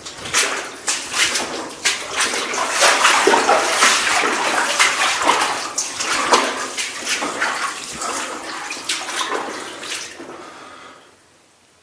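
Footsteps splashing and scuffing through shallow water, quick and irregular, stopping about eleven seconds in.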